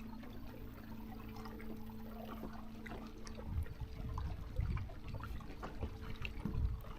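Water splashing and trickling, with a steady low hum that stops about halfway through, followed by irregular low knocks.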